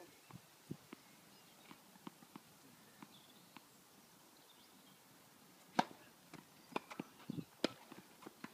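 Tennis balls struck by rackets and bouncing during a doubles rally: sharp pops, a few faint ones at first, then a quick run of louder hits from about six seconds in.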